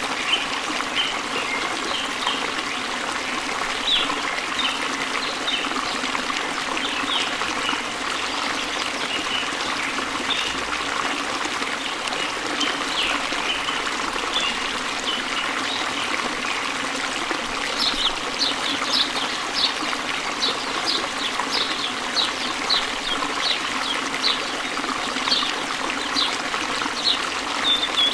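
Running water trickling steadily, with short high chirps scattered through it that come more often in the second half.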